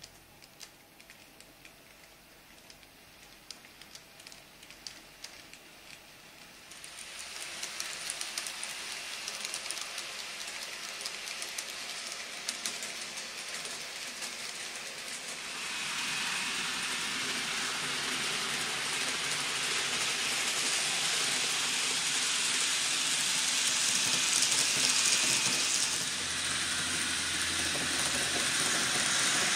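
Popondetta N-gauge model of a Tobu 500 series Revaty train running on model track. At first there are only scattered light ticks. Then a steady rolling hiss from the wheels sets in, growing louder about a quarter of the way in and again about halfway.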